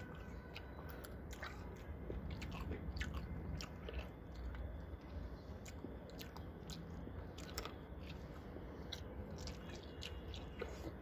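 A person chewing and biting into chicken close to the microphone: irregular wet mouth clicks and smacks, several a second.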